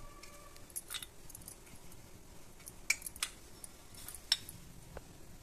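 A few light clicks and clinks, about four, as garlic cloves are picked up and dropped onto a steel plate of roasted peanuts; the loudest comes near the end.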